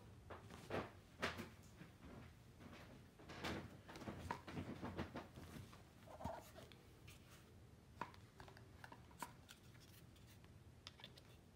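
Quiet handling noises: soft rustles and small plastic clicks as a power bank is moved about and a charger plug is pushed into it. The clicks come one or two at a time, a little busier in the first five seconds.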